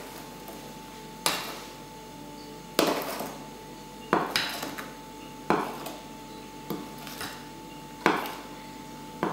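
Metal spoon knocking and scraping against the mixing bowl as flour is stirred into cake batter, a knock about every second and a half, each followed by a short scrape.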